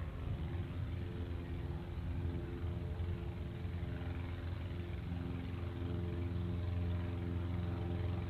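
Light aircraft's piston engine running with a steady drone, growing a little louder in the second half.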